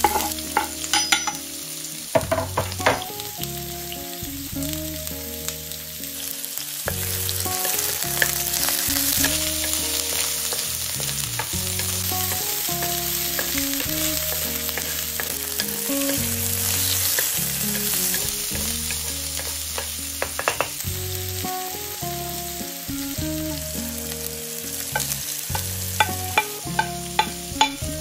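Food sizzling in a frying pan and being stirred, with sharp clicks of a utensil against the pan near the start and again near the end. Soft background music runs underneath.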